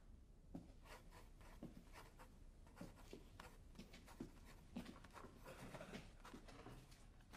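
Fountain pen nib scratching on paper in faint, short, irregular strokes while handwriting.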